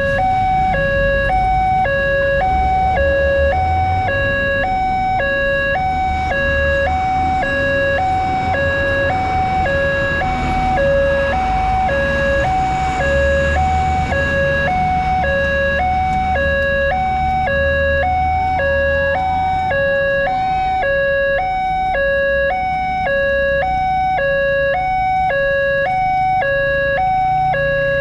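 Railway level-crossing alarm sounding a steady two-tone electronic ding-dong, switching between a lower and a higher note about every half second, warning that a train is approaching and the barrier is closing. Road-traffic engines rumble underneath.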